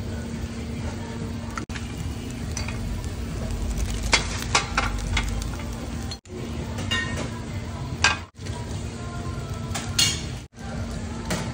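Cubes of beef steak sizzling steadily on a hot stone serving plate, with a few sharp clinks of tableware about four, eight and ten seconds in.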